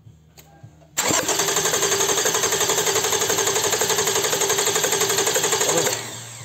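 Toyota 2GR-FE 3.5-litre V6 turned over on its starter motor with the spark plugs out for a compression test: fast, even pulsing cranking for about five seconds, starting about a second in and dying away near the end. The test reads about 14 bar, the same in every cylinder.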